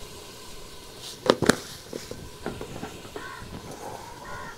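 Kitchen utensils knocking against a steel cooking pot: two sharp clinks about a second in, then a few lighter taps.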